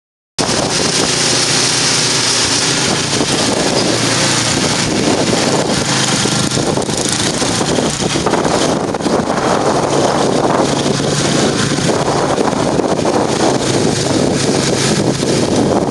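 Murray 10 HP, 29-inch snowblower running steadily after an engine rebuild, its engine note under a dense rushing noise, with wind buffeting the microphone.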